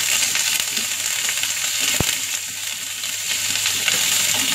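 Hot oil sizzling steadily in a frying pan as curry leaves, mustard seeds and ginger-garlic paste fry in it, with one brief knock about two seconds in.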